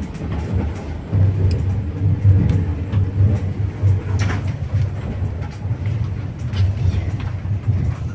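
Rolling noise of a moving passenger train heard inside a compartment of a double-decker coach: a steady low rumble with the wheels' occasional sharp clicks on the rail joints.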